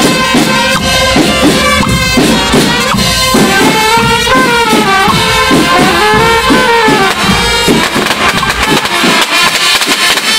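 Marching band's trumpets playing a loud melody with bending notes over a drum beat; the deep drum beat drops away about eight seconds in, leaving mostly the brass.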